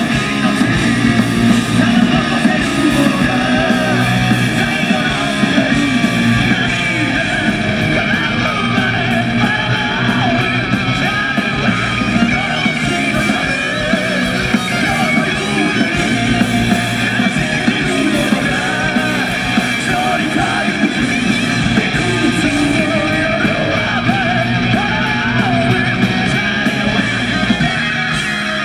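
Heavy metal band playing live: electric guitars, electric bass and drums, with a male singer singing over them.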